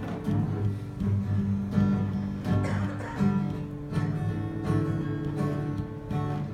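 Guitar music: strummed chords played steadily.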